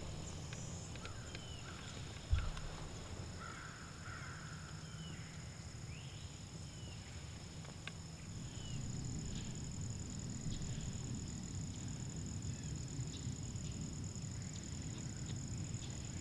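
Woodland ambience: a steady high-pitched insect drone with scattered short bird chirps. There is a single thump a little over two seconds in, and a low rumble rises about halfway through.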